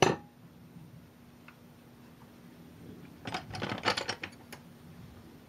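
A cast-metal mill vise set down on a table with a single sharp knock, then about three seconds in a short spell of small clicks and rattles as a hand rummages through lathe parts in a clear plastic tray.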